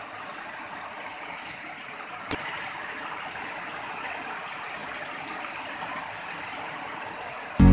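Small waterfall cascading over rocky steps: a steady rush of falling water, with one short click about two seconds in.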